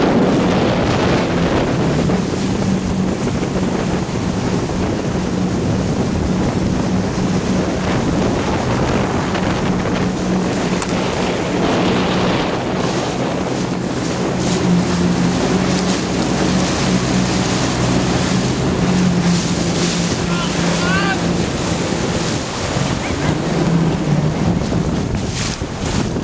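Jet ski engine running steadily under way, its tone shifting slightly with the throttle, with wind buffeting the microphone and water hissing and splashing against the hull.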